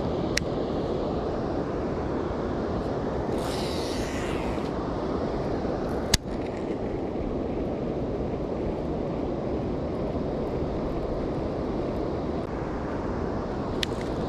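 Steady rush of a large waterfall, Cataract Falls, filling the sound. A few sharp clicks stand out over it, the loudest about six seconds in, and a brief high hiss comes about three to four seconds in.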